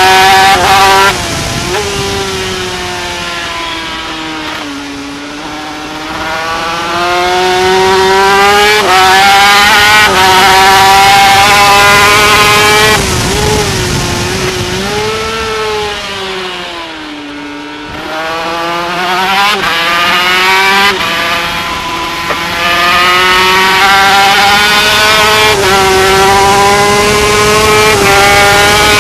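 Yamaha TZ250 two-stroke twin racing engine heard from on board at high revs, with quick breaks in the note at gear changes. Twice, near 5 seconds and again around 17 seconds, the revs and loudness fall away as the bike slows for a corner, then climb again as it accelerates out.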